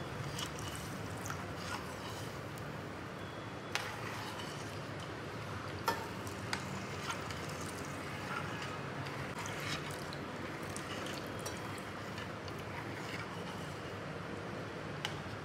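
Full-cream milk pouring from a steel pan into a steel pot of rice, a steady splashing pour, with a few light metal clinks of pan or spoon against the pot.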